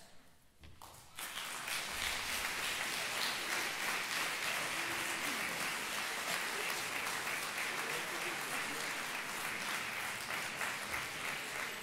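A brief hush, then a large audience applauding steadily from about a second in.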